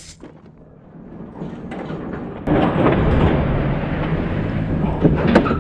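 Motorcycle engine running, faint at first, then growing louder and loud and steady from about two and a half seconds in. A few clicks near the end.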